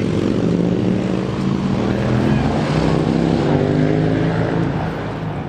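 An engine droning as it passes by, a steady hum that swells to its loudest a little past the middle and then eases off, its pitch drifting slowly lower.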